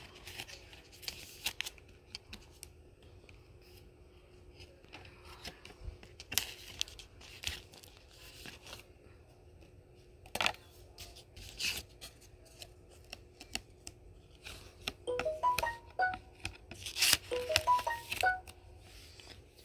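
Plastic binder sleeves rustling and crinkling as trading cards are handled and slid into the pockets, in scattered short scrapes and clicks that grow louder near the end. Two quick runs of short pitched notes sound about three-quarters of the way in.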